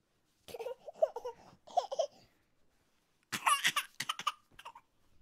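A young child's voice laughing and babbling in short bursts, the loudest a quick run of high laughs a little past the middle.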